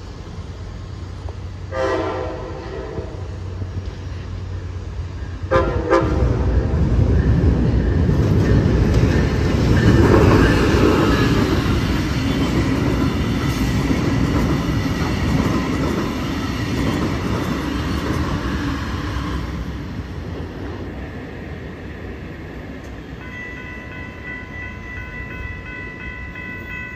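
A train sounds two short horn blasts, then passes with a loud rumble that builds, peaks and fades away. A steady high ringing tone comes in near the end.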